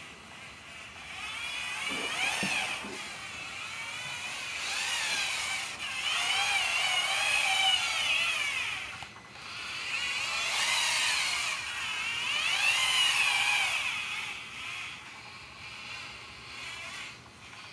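Small electric gear motors of a four-wheeled robot car whining as it drives, a high whine that rises and falls in pitch, in several long spells with short dips between, fading near the end.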